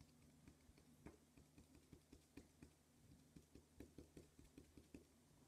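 Cotton swab dabbing paint onto paper: faint, quick taps, about three or four a second, over a faint steady low hum.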